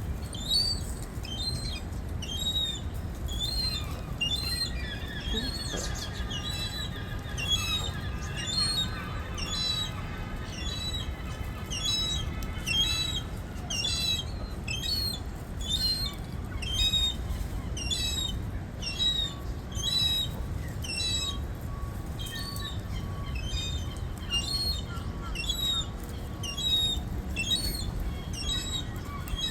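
A gull begging for food with a long run of short, high-pitched cries, a little more than one a second, over a steady low rumble.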